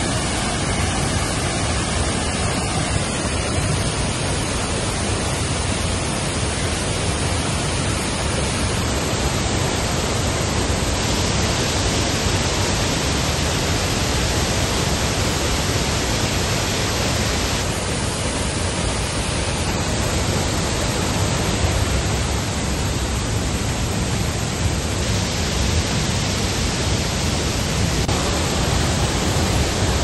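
Wide waterfall in full flow: a loud, steady rush of falling water, shifting slightly in tone several times.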